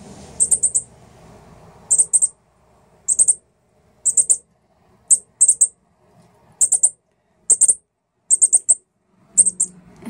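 Fledgling northern cardinal giving high, sharp begging chips in quick clusters of two to four, about once a second, while waiting to be hand-fed.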